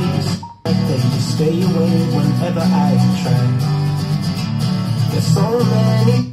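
Music with strong bass, played as a sound sample through a Wings Centre Stage 1000 soundbar. It drops out for a moment about half a second in.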